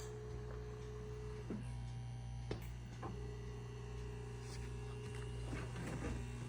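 Massage chair's electric motors running with a steady hum and a whine that stops about a second and a half in and starts again about three seconds in, with light clicks and knocks from the mechanism.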